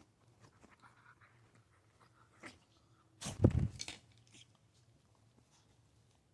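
A pet dog close by makes one short, low vocal sound about three seconds in, amid faint rustling.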